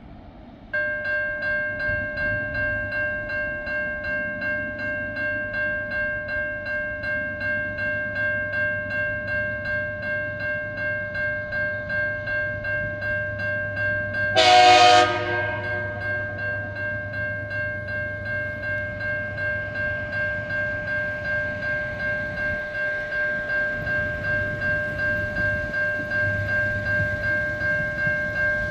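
Level crossing warning bell starts about a second in and rings in a fast, steady, even pattern as the crossing activates. About halfway through, the approaching TasRail diesel locomotive sounds one short horn blast over the bell.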